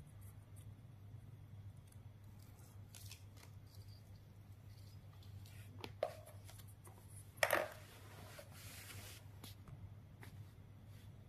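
Light handling sounds of ping-pong-ball fishing floats and fishing line on a hard table: small clicks and rustles, with two sharper knocks about six and seven and a half seconds in, over a steady low hum.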